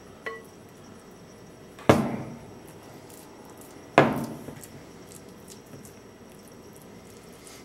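Kitchen utensils knocking: two sharp knocks with a short ring, about two seconds apart, as a spatula scrapes and spreads wet meatloaf mixture from a glass bowl into a metal loaf pan.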